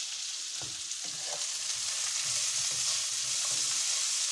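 Chopped vegetables sizzling in hot oil in a non-stick wok: a steady high hiss, with a spatula stirring and scraping through them in short strokes and light knocks.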